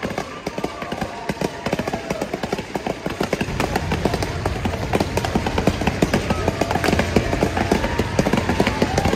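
Outdoor crowd ambience: a murmur of distant voices over a low rumble, with many small clicks and crackles. The low rumble grows louder about three and a half seconds in.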